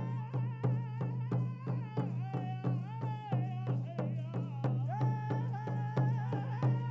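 Powwow singers beating hand-held frame drums in a steady beat of about three strokes a second while singing a high-pitched jingle dress song in unison.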